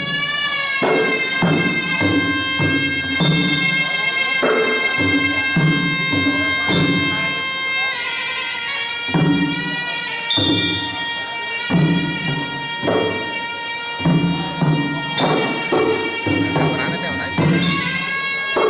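Traditional Khmer boxing ring music: a sralai, a shrill reed oboe, playing long, held melody notes over a steady pattern of hand-drum strokes.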